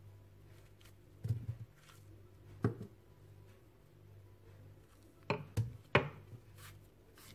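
Pieces of banana broken off by hand and dropped into a glass blender jar of sliced carrots, landing with short knocks: one about a second in, one a little before three seconds, then three in quick succession near the end.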